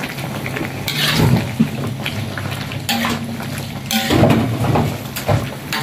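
Metal ladle stirring vegetable soup in a wok, knocking and scraping against the pan several times, about once a second.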